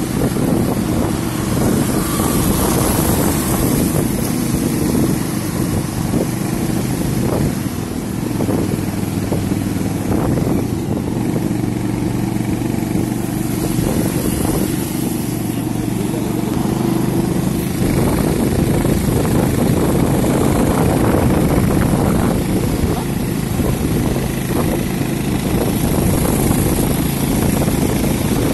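Motorcycle engine running steadily at riding speed, heard from the rider's seat.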